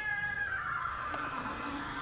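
Newborn beagle puppy crying: a high squeal that rises and holds for about half a second, then trails on as thinner whining.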